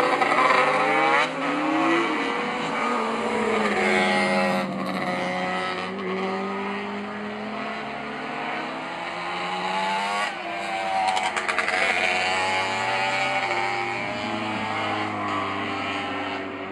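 Several classic racing motorcycles revving hard around the circuit, their engine notes climbing and dropping again and again as they accelerate and shift gears.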